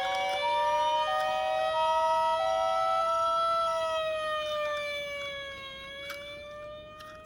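Electronic toy sirens. A hi-lo two-tone ambulance-style siren alternates about every 0.6 s until about four seconds in, over a long held siren tone that slowly rises and falls and fades near the end.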